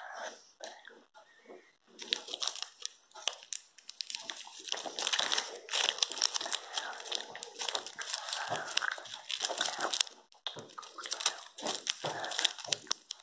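A child chewing soft, chewy sour sweets (Drumstick Squashies) with his mouth open, close to the microphone: a dense run of mouth clicks and smacks starting about two seconds in, with a brief pause just after ten seconds.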